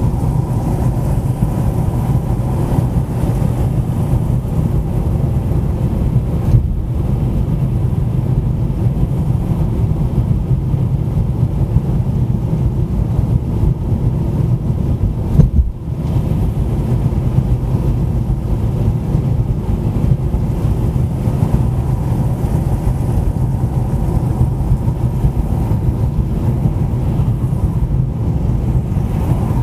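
Car driving along a city road: a steady low rumble of engine and tyre noise, with short dips about six and a half seconds in and again around sixteen seconds.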